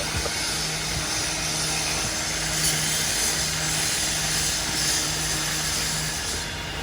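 Steady engine and machinery noise, with a low hum that drops out and returns about once a second.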